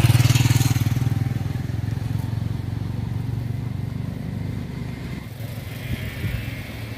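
A small engine running with a steady, low, pulsing drone. It is loudest at the start and slowly fades.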